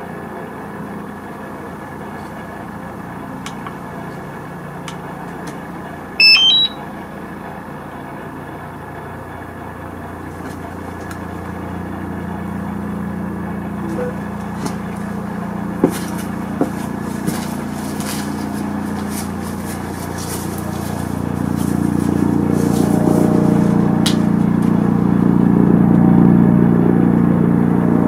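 DJI Mavic Mini drone: about six seconds in, a short rising run of beeps, typical of the drone or its controller powering up. Over the last several seconds the propellers spin up, and a steady buzz grows louder.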